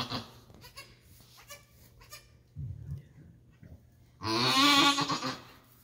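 A goat bleats once, about four seconds in: a long, loud, wavering call. A short low sound comes a little before it.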